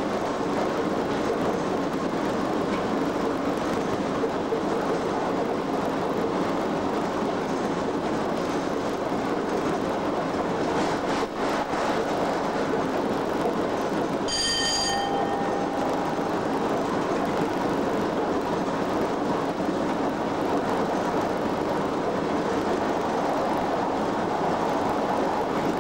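Steady running noise inside the cab of Class 87 electric locomotive 87033 at speed: wheels on the rails and the locomotive's machinery giving a continuous drone. A few clicks come about eleven seconds in, and a brief bell-like ringing tone sounds about fourteen seconds in.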